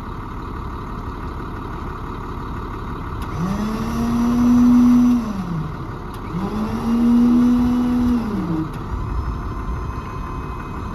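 Electric hydraulic pump motor of an Auto Crane on a service truck whining up in pitch, running steady for about a second and a half, then winding down, twice in a row as the boom is worked. A steady engine idle hums underneath.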